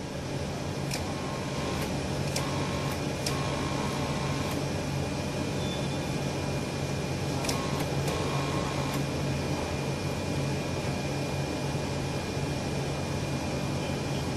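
Steady hum and whir of a running inkjet printer's machinery with a low drone. A few light plastic clicks come through in the first few seconds and again around eight seconds as ink-tube plugs are handled.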